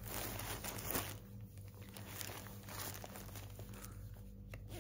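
A bag crinkling and rustling as it is handled, busiest in the first second and then softer, scattered crackles.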